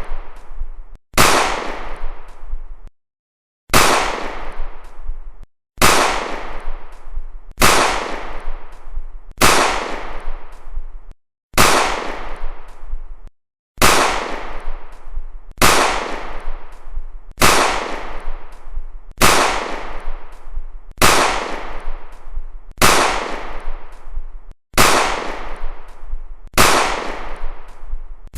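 Gunshot sound effects: about fourteen single shots, one every two seconds or so, each a sharp crack followed by a long echoing tail that dies away.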